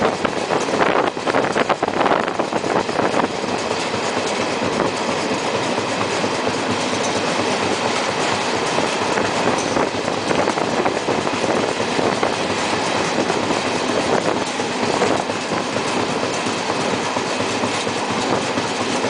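Indian Railways passenger train running along the track, heard from an open coach doorway: a steady rushing rumble of wheels and air, with a clatter of wheels over rail joints, busiest in the first few seconds.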